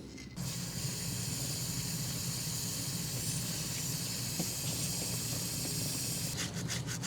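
Aerosol chain cleaner spraying onto a motorcycle drive chain, a long steady hiss. Near the end it gives way to quick back-and-forth rubbing.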